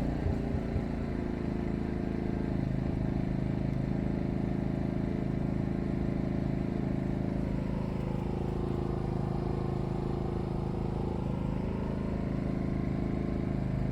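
Maxpeedingrods MXR4000GT dual-fuel inverter generator's single-cylinder four-stroke OHV engine running steadily at its low eco-mode speed: an even hum at about 62 dB from some 20 feet, its pitch wandering slightly midway.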